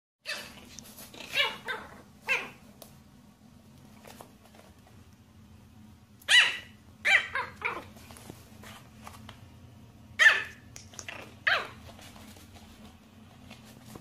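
Small white fluffy puppy yapping: short, high-pitched barks in three quick bursts.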